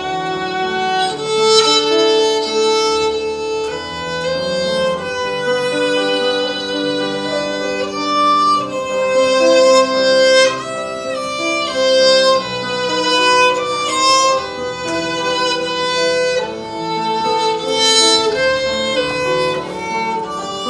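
Violin playing a melody over a lower accompaniment.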